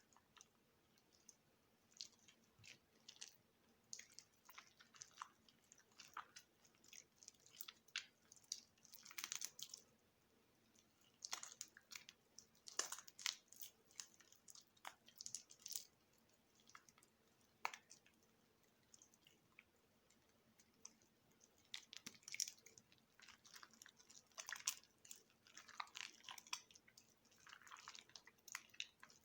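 A bar of soap that has soaked in water for a week being cut into, giving irregular soft crunches and short crackles, with brief pauses between runs of them.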